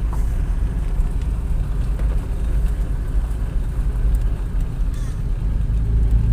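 Jaguar 420's 4.2-litre straight-six engine running at low revs as the car crawls in first gear, heard from inside the cabin: a steady low rumble, with the engine note firming up near the end.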